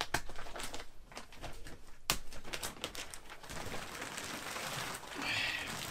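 Plastic wrap on a compressed memory foam mattress crinkling and rustling as it is handled and unrolled, with a run of sharp crackles and one loud click about two seconds in, then steadier rustling.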